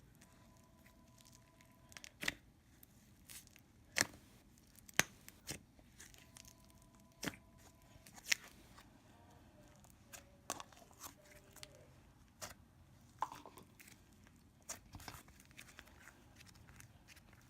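Butter slime being stretched and pulled apart by hand: a scatter of sharp clicks and short tearing crackles.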